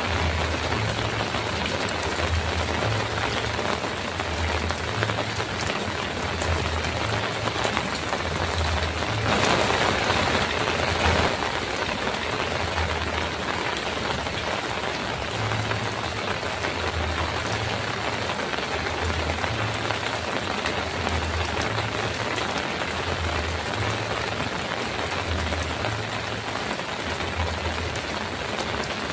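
Heavy rain falling on a metal roof as a steady, dense hiss, swelling louder for a couple of seconds about nine seconds in. A faint low pulsing throb runs underneath.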